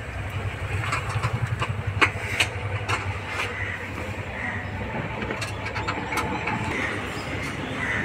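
An engine running at idle nearby, a steady low rumble that pulses evenly for the first couple of seconds and then settles. A few sharp clicks and knocks come about two to three seconds in.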